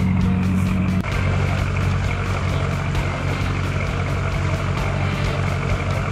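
Boat engine running steadily under way, its note shifting slightly about a second in.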